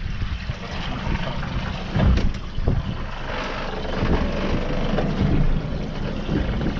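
Wind buffeting the microphone and sea noise aboard a small fishing boat at sea: an uneven low rumble.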